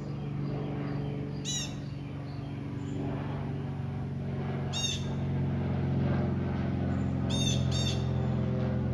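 Small propeller plane's engine humming overhead, a steady low drone that grows louder as it approaches. Short bird chirps break in three times, the last a quick double.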